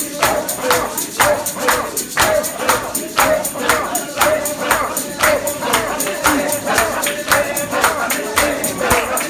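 Worship music: tambourines shaken and struck to a steady quick beat, about two to three strokes a second, with voices singing along.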